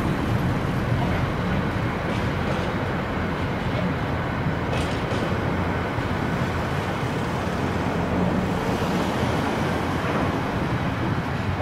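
Container wagons of a freight train rolling past, a steady noise of wheels on rails with a couple of short clicks from the wheels early in the passage.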